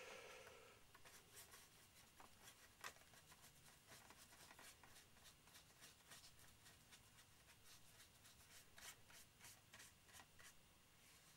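Near silence with faint, irregular scratchy strokes of a paintbrush working paint onto a model aircraft.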